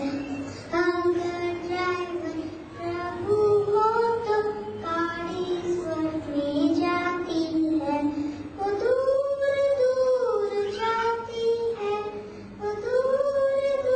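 A young girl singing a song solo into a microphone, one voice carrying the melody. About nine seconds in the tune climbs to higher, longer held notes.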